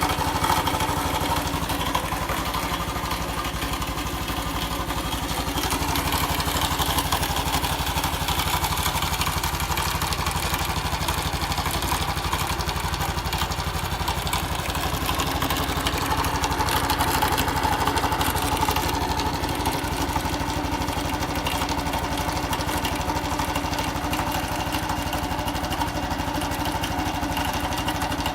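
Honda Cross Cub's single-cylinder four-stroke engine running steadily, with an abnormal noise from the engine.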